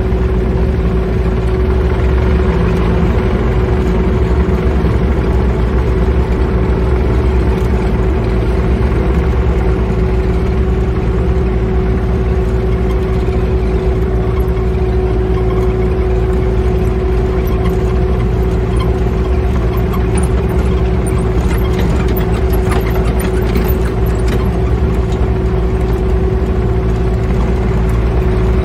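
Small excavator's diesel engine running steadily, heard from inside the cab as the machine travels across the yard, with a steady high tone over the engine note. A few light clicks and rattles come in past the middle.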